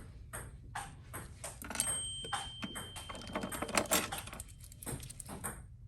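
Irregular light clicks and taps of small hand tools and metal parts as an iPhone 13 Pro Max's display is detached and its connectors unclipped. A faint, thin, steady high tone sounds for about a second and a half in the middle.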